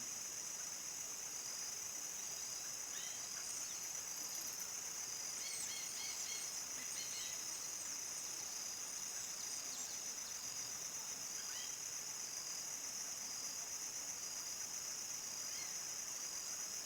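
Steady high-pitched chorus of crickets trilling without a break, with a few faint short bird chirps between about three and seven seconds in.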